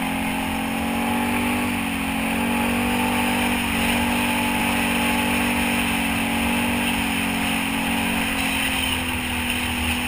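ATV engine running steadily under way, its pitch holding nearly level with small rises and dips.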